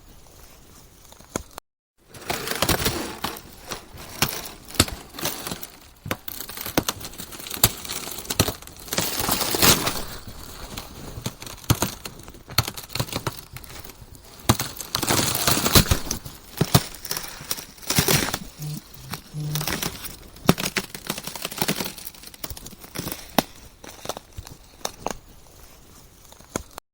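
Ice cracking: dense runs of sharp crackles and snaps that swell and ease in waves. Near the start the sound cuts briefly to dead silence.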